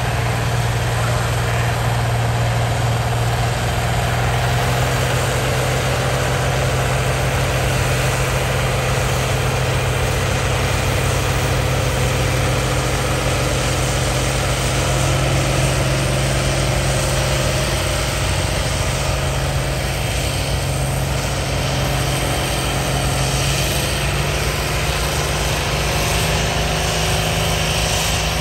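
John Deere farm tractor's engine running hard under load as it pulls a weight-transfer sled down a dirt track, a steady engine note that rises slightly in pitch near the end.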